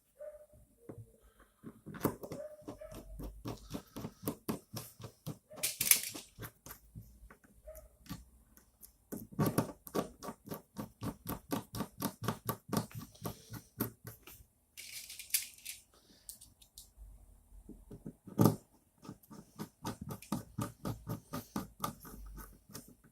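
Hand assembly of the acrylic frame of an Anet A8 3D printer kit: a quick, regular clicking, about four clicks a second, in two long runs, with a short scraping hiss twice in between.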